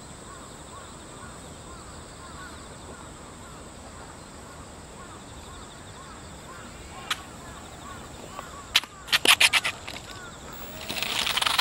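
Twin electric motors and propellers of a small 2-channel EPP foam RC airplane spin up near the end into a loud, even whir as it starts a take-off roll on asphalt. Before that, faint bird calls and a quick run of sharp clicks a little past the middle.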